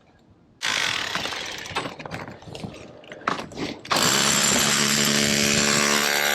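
Electric demolition hammer chipping at a brick chimney. It runs unevenly for about three seconds, then loud and steady with a hum from about four seconds in, hard enough to shake that whole side of the chimney.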